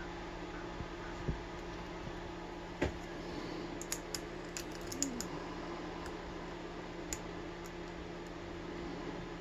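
Scattered small metallic clicks and taps of lock-picking tools being handled and set into a padlock's keyway, over a steady low hum.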